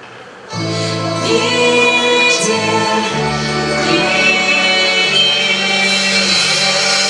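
Folk-instrument orchestra with singers: after a brief hush, the full ensemble comes in loudly about half a second in and holds long sustained chords, with wavering held voices over them.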